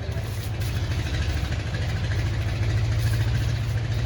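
An engine running steadily at an even, low hum.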